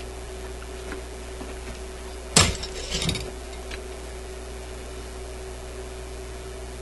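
Side cutters being handled at a radio dial pointer: one sharp click about two and a half seconds in, then a few lighter clicks, over a steady low hum.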